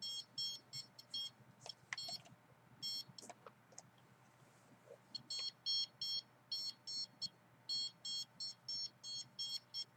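Handheld radiation meter beeping: short, high electronic beeps in irregular clusters. They are sparse for the first few seconds and come thicker and faster from about five seconds in.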